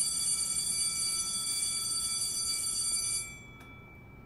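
An alarm bell ringing continuously, then stopping about three seconds in, its lower tones ringing on faintly after the clapper stops.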